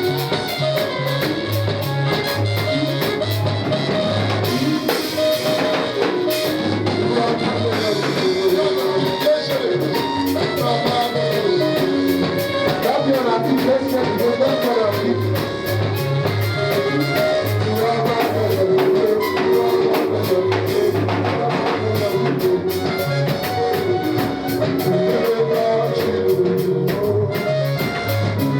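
Band music with a steady drum beat, a pulsing bass line and guitar playing a wandering melody.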